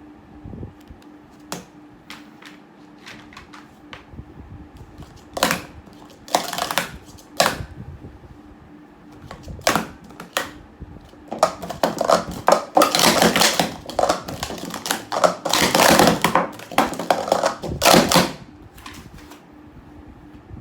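Plastic sport-stacking cups clacking as they are rapidly stacked and unstacked: scattered clacks at first, then a dense run of fast clattering for about seven seconds that stops abruptly.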